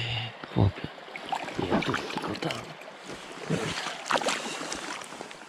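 Boots wading through shallow river water over rocks, with a splash at each step, about once a second.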